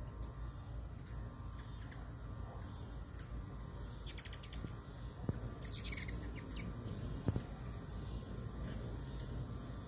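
Hummingbirds at a feeder giving high, thin squeaky chips and twitters in two short bursts, about four and six seconds in, over a steady low background hum.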